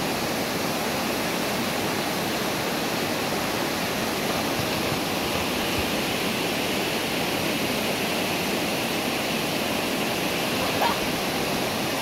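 Steady rush of a shallow mountain stream's flowing water, with the splashing of a dog bounding through it, heaviest around the middle.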